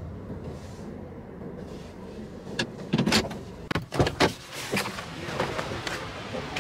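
Steady low rumble of a car at parking-lot speed, heard inside the cabin. About halfway through it gives way to a run of sharp clicks and knocks as the car is stopped and the door is opened to get out, with the camera being handled.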